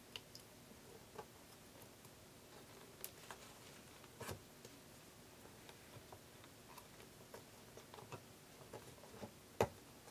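Scattered small clicks and taps from a speaker's tweeter pod being handled and seated on top of the cabinet, with one sharp click about nine and a half seconds in.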